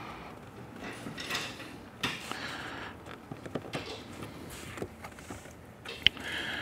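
Plastic door card of a Porsche 911 GT3 RS being pried and tugged with a trim tool: scattered small clicks and rubbing of plastic trim, with one sharp click a little after six seconds in. The panel's clips are holding and not yet letting go.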